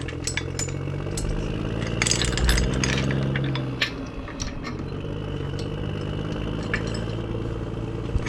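A motor or engine running steadily, briefly louder about two to three seconds in. Over it come repeated metallic clinks and rattles of tools and parts being handled while working on a seized crankshaft in a Ford 360 FE block.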